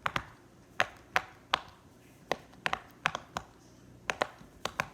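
Silicone pop-it fidget toy having its bubbles pressed through one after another with the fingers: an irregular run of about a dozen sharp little pops, sometimes two in quick succession.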